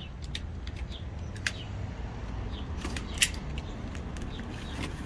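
Scattered light clicks and taps from brake rotors and their cardboard packaging being handled, over a steady low background rumble.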